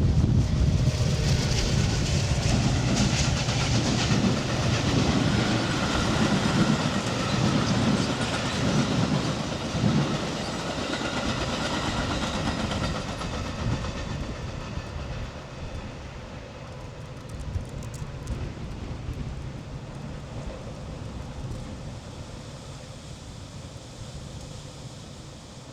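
Metra commuter train rolling past on steel rails, loudest at first and then fading steadily as it moves away.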